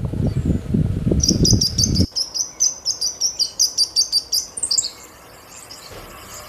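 A bird gives a rapid series of high chirps, about five a second, for several seconds and then stops. Over roughly the first two seconds a loud, rough low noise runs underneath and cuts off suddenly.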